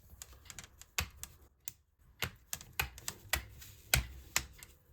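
Irregular sharp plastic clicks and taps, a dozen or so: a laptop screen's plastic bezel being prised loose along its edge, its clips letting go.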